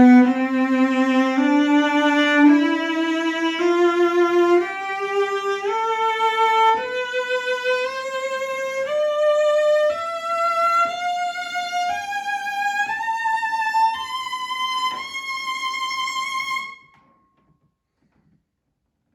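Breton Breveté cello by Jérôme Thibouville-Lamy of Mirecourt, about 1910, strung with Pirastro Perpetual strings, bowed in a slow ascending scale of about one note a second with vibrato, climbing from the lower strings into the high register. The scale stops a couple of seconds before the end.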